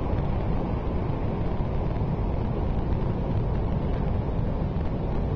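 Steady roar of wind buffeting the microphone mixed with heavy surf on a beach churned up after a typhoon, an even rumble with no breaks.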